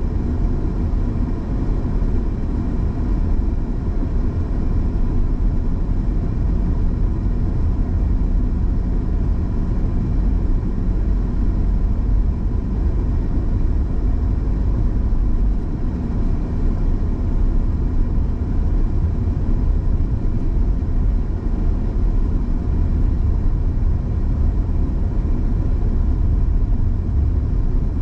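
Car driving at a steady pace: a continuous low rumble of engine and road noise.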